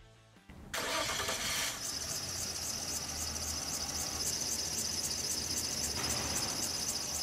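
A car engine starts up about a second in and runs with a high-pitched whistling squeal from the accessory drive belt that chirps in a rapid, even pulse. This kind of belt whistle is typical of a stretched belt or a broken tensioner.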